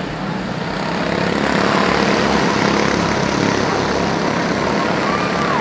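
A pack of quarter midget race cars with small single-cylinder Honda engines running at full throttle as they race past. The buzz of the engines grows louder about a second in, as the field comes down the straight.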